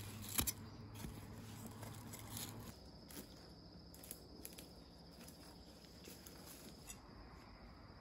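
Insects chirring steadily and high, with scattered crackles of dry leaves and twigs being trodden or handled. A sharp click about half a second in is the loudest sound.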